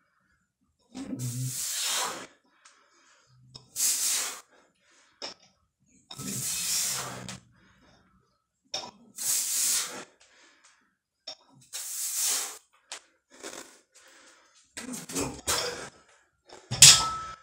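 Hard, hissing breaths of a man doing barbell back squats, one forced breath about every two to three seconds with each rep. Near the end the breaths come quicker and a loud thud follows as the loaded barbell is set down on the floor.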